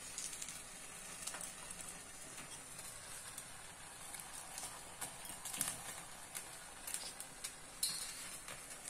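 Faint sizzle of oiled chillies roasting directly over a gas flame, with scattered light clicks of a knife cutting chillies.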